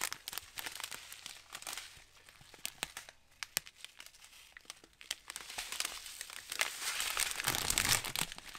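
Thin plastic zip bags of diamond-painting drills and rhinestones crinkling as they are handled, with scattered small clicks. It eases off in the middle and picks up again in the last few seconds.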